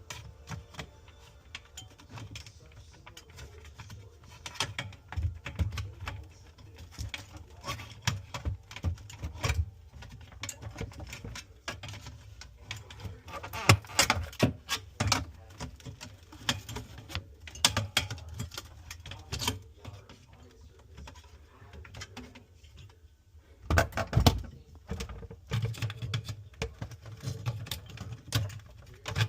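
Irregular clicks, taps and knocks of hands and tools handling refrigerator parts, with louder bunches of knocks about halfway through and again some ten seconds later.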